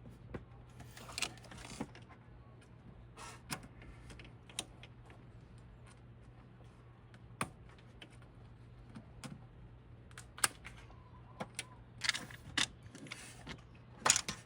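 Small metal parts and hand tools being handled: scattered sharp clicks and clinks with short scraping rustles at irregular intervals, over a faint steady low hum.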